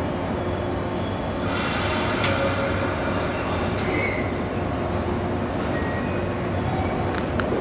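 Yellow JR West 113 series electric train pulling out of the station over a steady low rumble, with high-pitched squealing tones setting in about a second and a half in and dying away a few seconds later.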